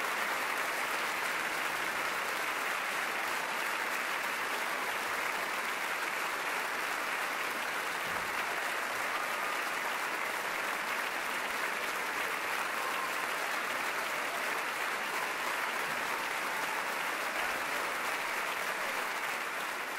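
Large audience in a packed concert hall applauding steadily after a performance.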